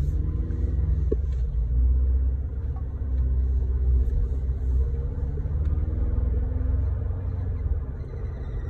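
2020 Ford Ranger under way: a steady low rumble with a faint whine that drifts in pitch, the transmission whine the owner puts down to its 10R80 ten-speed automatic.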